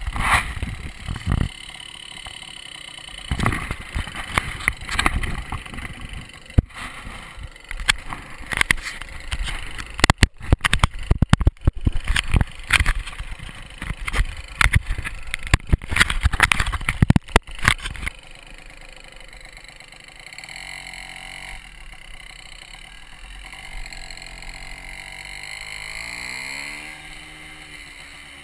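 Small 80cc two-stroke engine of a 1977 Yamaha Champ mini-bike, ridden off. For the first two-thirds it comes in loud, irregular bursts; after that it runs steadier, its pitch rising and falling as it speeds up and slows through the ride. Heard from a camera worn on the rider's head.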